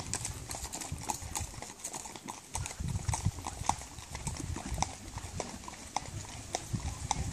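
Horses' hooves clip-clopping at a walk on a hard road surface, a loose series of sharp clacks a few times a second.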